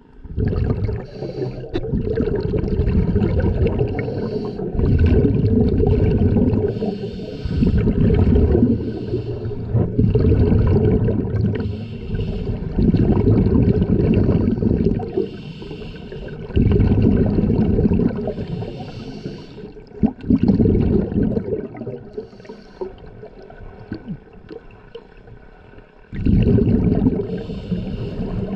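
Scuba regulator breathing heard underwater: low, bubbling exhalations in bursts of two to three seconds, repeating every few seconds, with a quieter gap of a few seconds before a last burst near the end.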